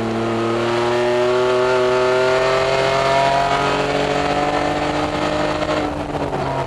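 Straight-six engine of a 2000 BMW Z3 Coupe Grand-Am Cup race car, heard from inside the cabin, pulling hard with its pitch climbing slowly. About six seconds in the driver lifts off the throttle and the engine note drops.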